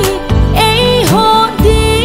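Background music: a sustained melodic lead line with sliding notes over a steady bass, with a few percussive hits.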